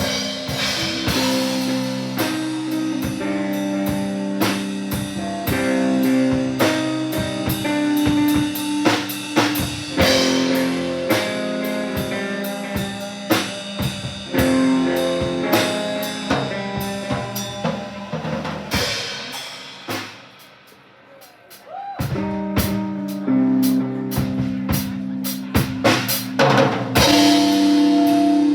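A band playing an instrumental live: a drum kit pounding under sustained guitar chords. About twenty seconds in the band drops out almost to quiet, then everyone comes back in hard about two seconds later.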